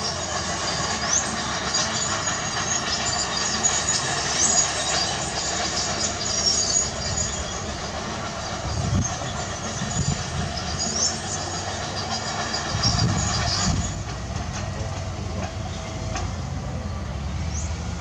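Crawler bulldozer tracks squealing and clanking over a steady diesel engine rumble, with a few short rising squeaks. The squealing stops about 14 seconds in, leaving the engine rumble of heavy equipment.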